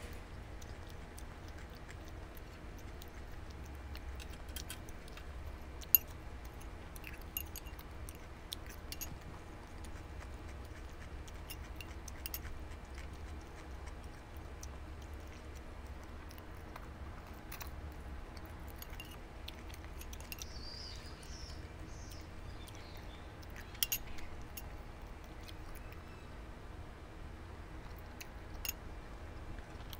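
Scattered sharp clicks of chopsticks and a metal spoon against a ceramic rice bowl and a glass tabletop, the loudest about six seconds in, with soft chewing in between, over a steady low rumble.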